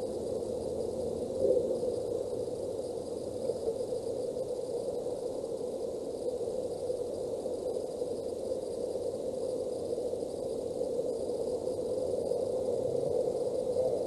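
Steady static-like hiss picked up by an outdoor nest-camera microphone, with a short louder bump about a second and a half in.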